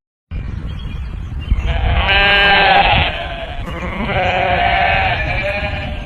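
Goat bleating, two long wavering bleats, over a low rumbling background noise.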